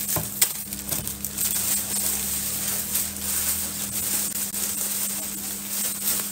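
Clear plastic wrapping crinkling and rustling as it is pulled off a packaged handbag, with a few sharp crackles about half a second in.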